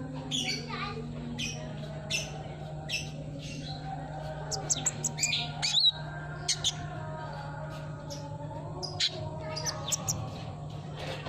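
Sunbird song: a string of sharp, high chirps and short twittering phrases at an irregular pace, thickest around the middle, over a steady low hum.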